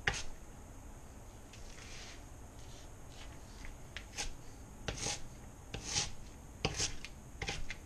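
Chef's knife cross-cutting shredded red cabbage on a cutting board: separate crisp cutting strokes, roughly one a second and unevenly spaced, each a short crunch of leaves with a tap of the blade on the board.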